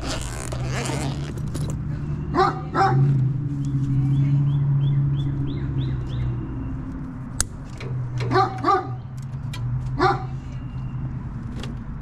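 A Great Dane barking in short barks: a pair about two and a half seconds in, a quick few around eight and a half seconds, and one more near ten seconds. A steady low hum runs underneath.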